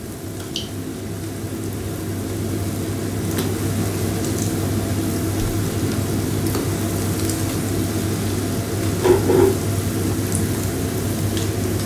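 Deep oil sizzling as balls of yeasted luqaimat dough fry in it, getting louder over the first few seconds and then holding steady, over a steady low hum.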